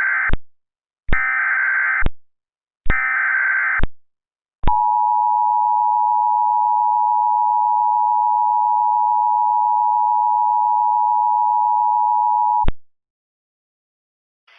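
Emergency Alert System signalling: three short, screechy SAME digital header bursts about a second apart, then the steady two-tone EAS attention signal held for about eight seconds before it cuts off. The header and tone announce an incoming Flash Flood Warning.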